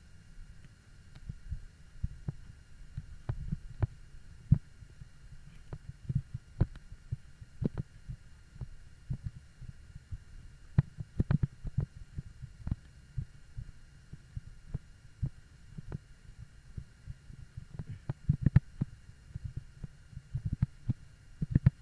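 Irregular low thumps and knocks, denser and louder in the second half, over a faint steady hum.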